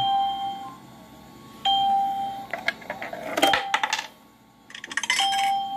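Piso WiFi coin vendo beeping in its insert-coin mode: one steady electronic beep about every 1.7 seconds, four times. A coin drops in with a few metallic clicks about three and a half seconds in, and the credit goes up by one peso.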